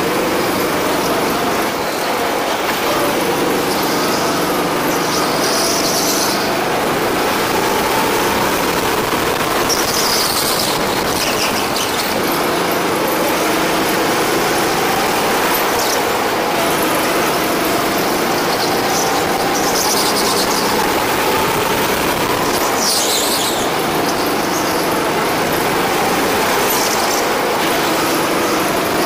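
Go-kart engine running hard, its pitch rising and falling again and again as the throttle comes on and off through the corners, with brief high tyre squeals every few seconds.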